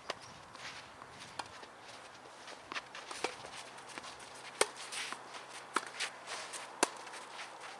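Footsteps scuffing on a clay tennis court, with short sharp knocks of a tennis ball bouncing and being struck by a racket; the three loudest knocks come in the second half.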